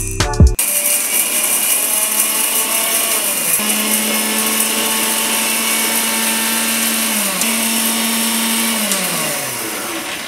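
Coffee beans clatter into the steel cup of an electric blade grinder, then its motor runs steadily, grinding the Arabica beans. The motor's pitch sags during the first few seconds, dips again about seven seconds in, and falls away near the end as it winds down.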